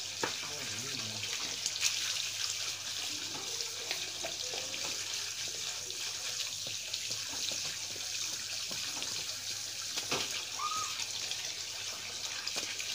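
Steady hiss with faint, indistinct voices in the background, a few sharp clicks, and one short high chirp about ten seconds in.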